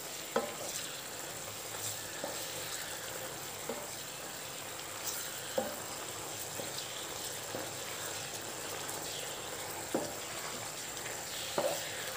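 Squid pieces sizzling and bubbling in a spiced liquid masala in a non-stick pan, a steady hiss. A spatula stirs them and knocks lightly against the pan about six times.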